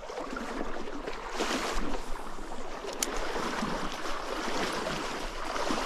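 Small trout stream's water running and splashing close by, swelling and easing, with one sharp click about three seconds in.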